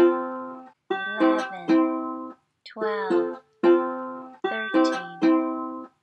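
Background music of short strummed string chords that start sharply and ring away, several in a row with brief silences between.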